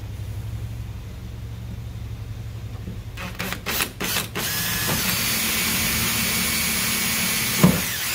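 Cordless drill (Makita 18V) drilling a new hole through the urethane bumper cover into the fender well where the holes did not line up. A few short bursts of the trigger come about three seconds in, then the drill runs steadily at full speed for about three seconds and stops with a knock near the end.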